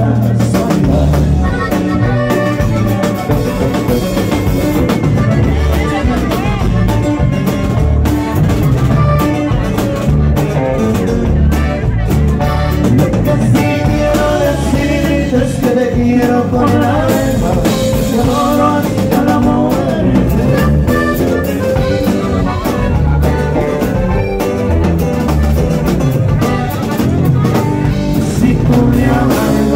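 Live norteño music: a button accordion playing the lead over electric bass, guitar and drum kit.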